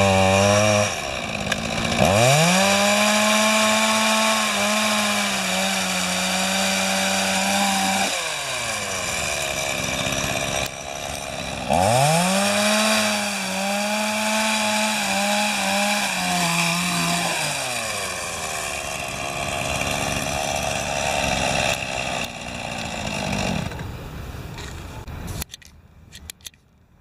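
Two-stroke chainsaw engine driving an ice-auger attachment, run up to full throttle twice while boring through ice, each run lasting about six seconds before the revs drop back. It runs on at low revs and then fades out near the end.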